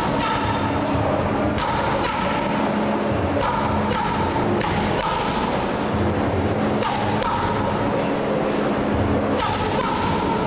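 Background music with heavy thuds at uneven intervals: boxing gloves striking focus mitts.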